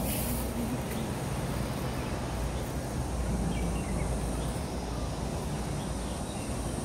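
Steady low rumble of outdoor background noise, with a brief hiss right at the start and a few faint high chirps about halfway through.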